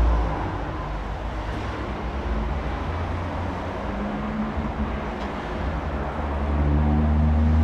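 Steady low rumble of background noise, with a faint hum.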